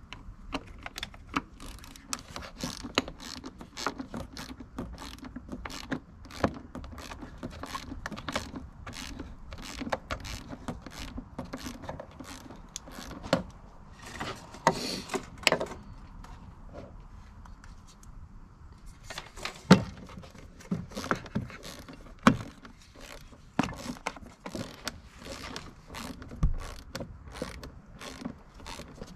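Hand tools working fasteners on plastic engine-bay covers: a run of sharp clicks and metallic clinks, with a ratchet and small tools clattering. The clicks pause for a few seconds about two-thirds of the way through, then start again with one loud click.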